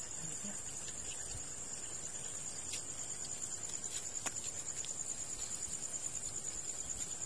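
Night insects trilling steadily on one high pitch, with a few faint clicks.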